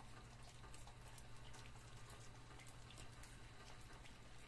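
Faint wet smacking and clicking of a dog and her puppies eating rice from a metal bowl, many small irregular clicks over a low steady hum.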